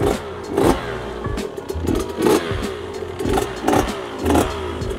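KTM 85 SX single-cylinder two-stroke dirt bike engine being blipped about five times, each rev falling back to idle while it warms up.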